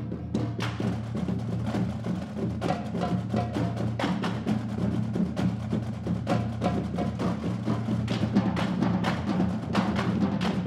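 Marching drumline playing: a line of tuned marching bass drums struck with mallets, with snare and tenor drums, in a dense run of quick strokes. The bass drums' low pitches ring underneath.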